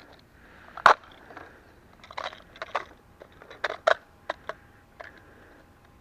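Heritage Rough Rider single-action revolver being loaded with .22 LR cartridges: a series of irregular sharp clicks from rounds and metal parts being handled, with a loud click about a second in.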